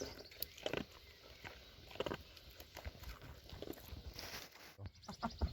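A dog moving about close by, with scattered small clicks, knocks and rustles at irregular moments.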